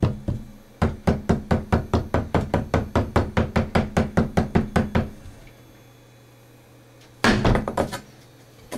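Rapid, even tapping on a large-format ceramic tile, about five knocks a second for some four seconds. A short cluster of knocks follows near the end.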